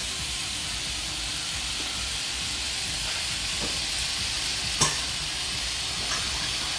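Steamed katahar (breadnut) pieces frying in hot masala in a stainless steel frying pan: a steady sizzle, with a single sharp knock of the metal spoon against the pan a little before five seconds in.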